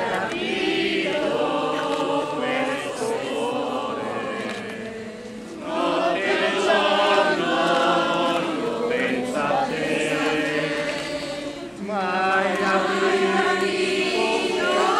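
A group of voices singing a Marian hymn in Italian, in long sung phrases with short breaks about five and a half and twelve seconds in.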